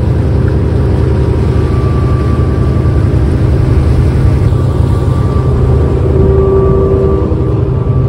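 Steady low rumble of a battery-electric car ferry underway, with water noise and a faint steady whine on top.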